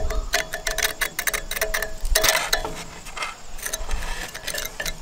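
A small metal hand tool scraping and picking caked crud off the steel stump jumper of a Bush Hog 305 rotary cutter: a quick, irregular run of scratches and clicks, busiest about two seconds in.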